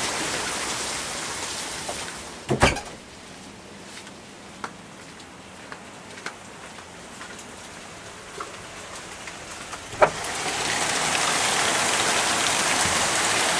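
Heavy rain pouring. It fades to a muffled hiss after a double knock about two and a half seconds in, with a few faint clicks. It is loud again from just after a sharp click about ten seconds in.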